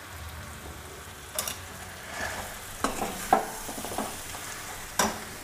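Jaggery lumps and ghee sizzling in a metal kadai while a steel spoon stirs them, the spoon knocking and scraping against the pan about five times.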